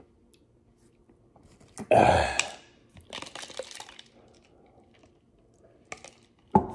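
A man makes a loud guttural throat noise about two seconds in, reeling from the burn of a Carolina Reaper pepper. Then ice rattles in a plastic cup as he drinks iced lemon juice, and a short loud sound comes from him near the end.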